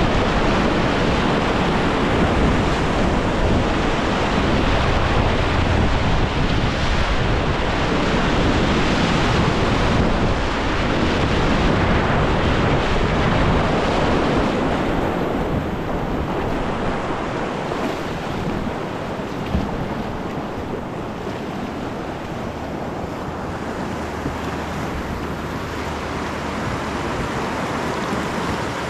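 Whitewater rapids rushing loudly close by, with wind buffeting the microphone; the rush eases somewhat in the second half.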